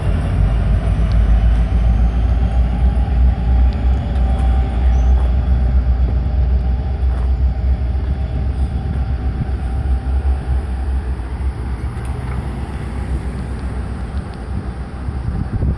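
Low, steady rumble of a Norfolk Southern freight train rolling away from the grade crossing, easing off over the last few seconds as road cars begin to drive over the crossing.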